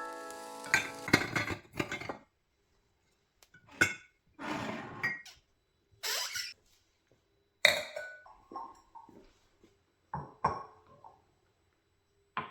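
Music with held notes ends about a second in. After that come scattered clinks and knocks of hard objects being picked up and set down, with a few brief rubbing or rustling sounds between them, like dishes and utensils being handled.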